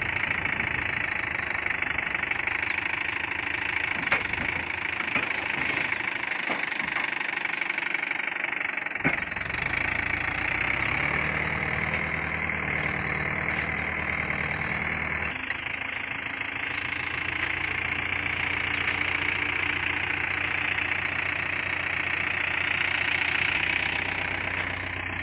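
Mahindra 575 tractor's diesel engine running steadily while it pulls a hydraulic tipping trailer with its bed raised, unloading cow dung. The engine note changes about ten seconds in and again around fifteen seconds in, with a few sharp knocks near four and nine seconds.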